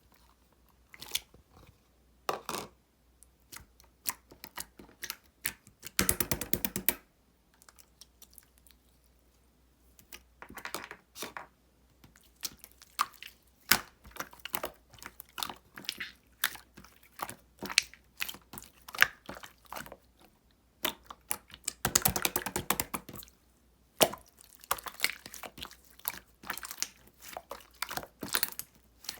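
Opaque slime being squished and pressed by hand, giving irregular wet clicks and small air-bubble pops, with two denser runs of crackling, about six and twenty-two seconds in.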